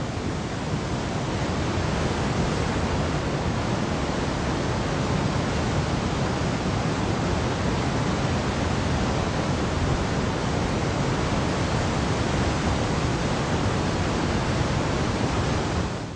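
Waterfall: a steady rushing roar of falling water that stops abruptly at the end.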